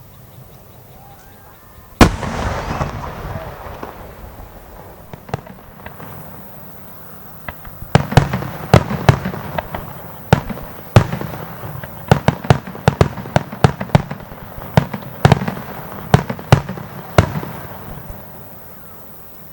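Fireworks display: one loud aerial shell bursts about two seconds in, followed by a long echoing rumble. From about eight seconds a rapid barrage of sharp bangs follows at a few a second for close to ten seconds, then dies away.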